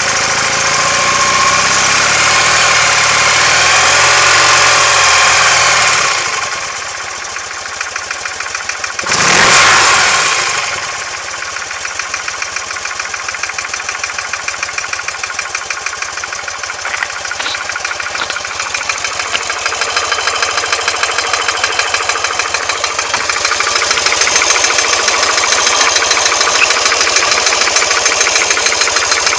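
BMW R100S air-cooled flat-twin engine running with an even firing beat, louder for the first six seconds, with a brief loud surge about nine seconds in, then settling and picking up again later. The owner hears a knock from the left side when the engine is cold, gone once it is warm, after a rebuild with the heads retorqued and the rockers adjusted.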